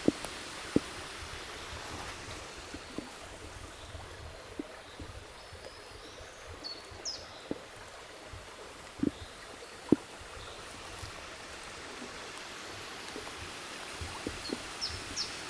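Stream water running steadily, with a few sharp knocks, the loudest about nine and ten seconds in. Short high bird chirps come in twice, a little before halfway and again near the end.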